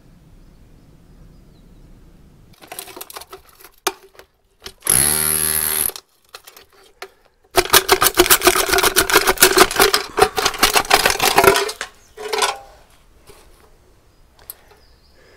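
A one-second burst from a corded power tool about five seconds in, then about four seconds of rapid rattling and scraping as the old, rusty metal boiler flue pipe is twisted and worked out of its hole in the brick wall.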